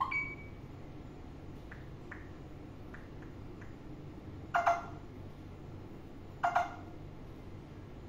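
Alexandrine parakeet giving short squawking calls: a brief call right at the start, soft chirps over the next few seconds, then two louder calls about two seconds apart.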